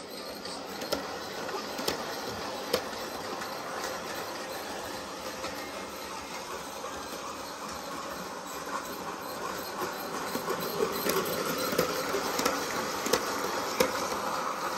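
Bachmann G-scale Percy electric model locomotive running on its track pulling a rake of trucks: a steady whirring rumble with occasional sharp clicks, louder toward the end as it comes closer. Mixed in is the squeak this locomotive is known to have, which the owner calls really bad.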